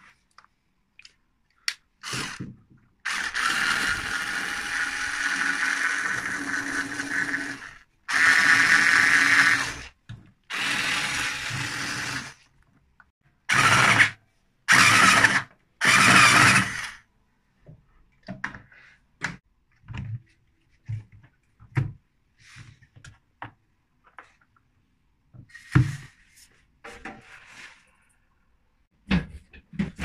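Handheld cordless electric screwdriver running in a series of bursts, the first about five seconds long and the rest one to two seconds, as it drives screws. Scattered light knocks and clicks of parts being handled follow in the second half.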